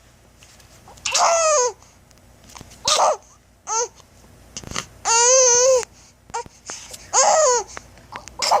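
Five-month-old baby squealing and babbling in short high-pitched bursts, about six of them with pauses between, the pitch sliding up and down; the longest and loudest squeal comes about halfway through.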